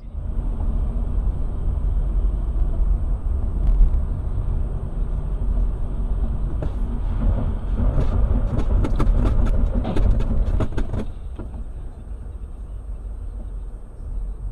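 Car driving on a winter road, recorded inside the car by a dashcam: a steady low road and engine rumble, with a run of sharp clicks and knocks from about seven to eleven seconds in, after which the rumble gets quieter.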